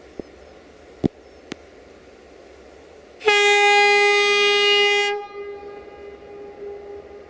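Horn of a CFR class 40 (060-EA) 5100 kW electric locomotive sounding one long, steady, loud note for about two seconds, then dropping to a fainter tone that lingers. A few sharp clicks come before it.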